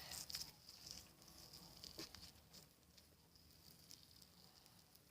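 Near silence, with a few faint soft squishes and clicks of homemade slime being handled in the first couple of seconds.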